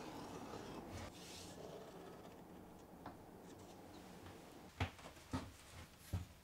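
Wood glue squeezed from a plastic bottle and spread along the edges of a wooden box frame, a faint rubbing hiss. Then a few light knocks, the loudest near the end, as the bottle is set down on the wooden workbench and a plywood panel is handled.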